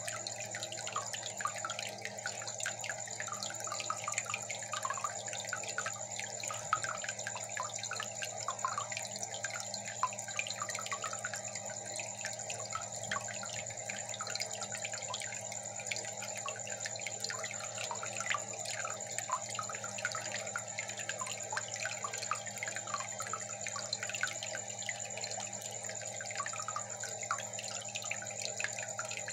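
Aquarium water bubbling and trickling, a steady patter of small drips and splashes over a constant low hum and a faint high whine.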